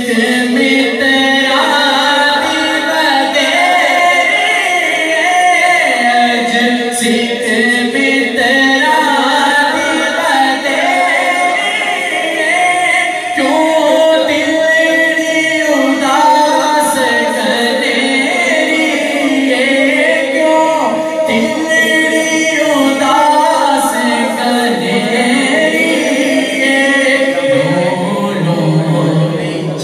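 Unaccompanied devotional singing of a Punjabi naat, with long drawn-out notes: a reciter on a microphone leads and a gathering of men joins in.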